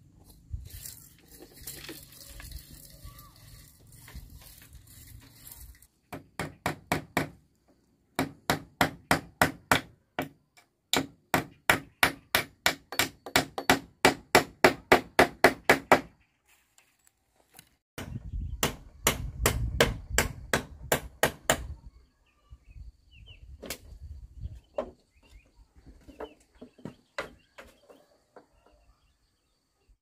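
Runs of quick, even blows of a tool striking bamboo, about three a second, each run lasting a few seconds with short pauses between.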